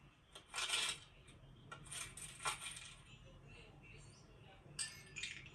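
Metallic clinking and rattling of small hard pieces, like coins jostling, in three short clusters: about half a second in, around two seconds, and near the end. These are cartoon toy-movement sound effects.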